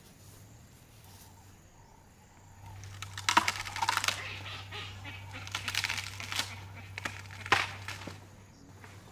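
An African elephant moving through long grass at close range: irregular rustling and crunching of grass and twigs as it walks and sweeps its trunk through the vegetation, starting about three seconds in with several sharper cracks. A faint steady low hum runs underneath.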